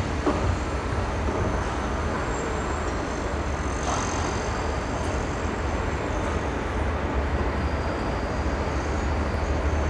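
Steady outdoor city noise from around a large construction site, an even hiss over a constant low rumble, with a faint brief high squeak about four seconds in.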